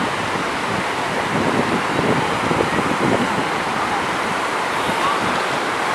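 Small, calm-day waves washing and breaking onto a sandy beach in a steady hiss of surf, with wind buffeting the microphone.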